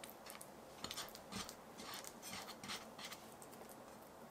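Oiled hands pressing and patting a filled ball of sticky glutinous-rice-flour dough flat against a frying pan: faint wet squishes and small taps, clustered between about one and three seconds in.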